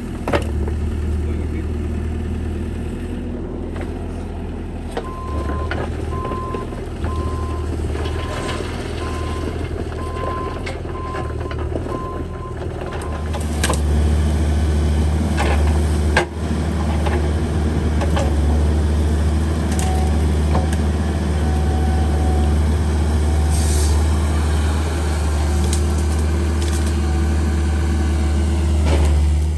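Small mini excavator running with a steady low engine hum, a repeating beeping alarm sounding from about 5 to 13 seconds in. The engine gets louder about halfway through, as when working under load, with a couple of sharp knocks soon after.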